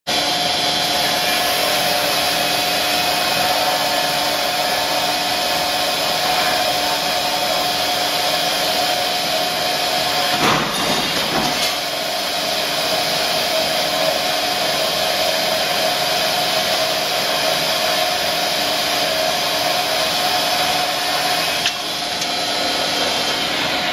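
Kalamazoo K7B abrasive chop saw running under load, its abrasive wheel grinding through a solid round steel bar: a steady tone over a harsh, even grinding hiss, with a brief change about ten seconds in and a small click near the end.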